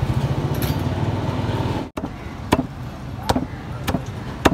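A low, steady engine rumble that cuts off abruptly about two seconds in; then a butcher's cleaver chopping beef on a wooden chopping block, four chops about two-thirds of a second apart.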